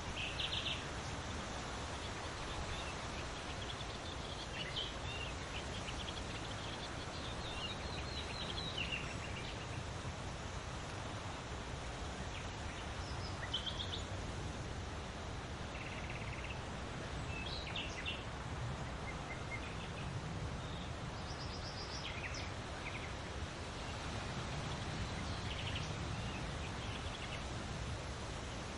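Wind rustling through large leaves as a steady hiss with a low rumble, while small birds give short scattered chirps and trills throughout.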